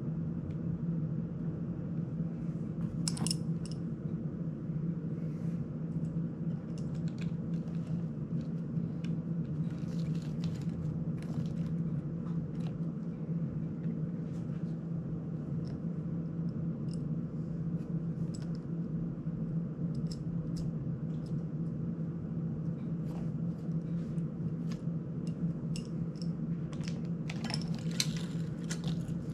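Small hand tools and tiny screws clicking and tapping against a small drone's frame as it is worked on, in scattered light clicks with a busier cluster near the end. A steady low hum runs underneath.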